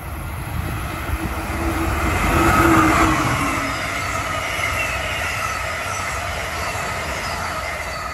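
Amtrak passenger train behind an electric locomotive passing at speed. The locomotive's rush builds to its loudest about three seconds in, its pitch falling as it goes by. Then the cars roll past with a steady rush and a high ringing from the wheels on the rails.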